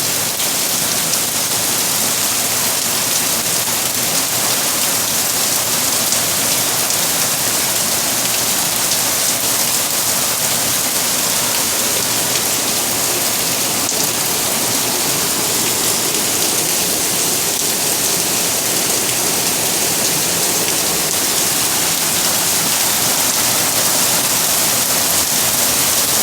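Rain pouring down steadily in a tropical summer thunderstorm, an even, unbroken hiss.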